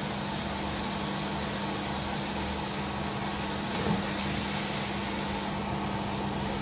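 Steady motor hum with a low tone, and a brief light knock about four seconds in as a glass lid is handled over the wok.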